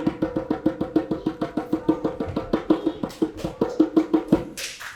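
Fast, even percussion strikes, about eight a second, on the same pitch, stopping about four and a half seconds in, with applause starting just after.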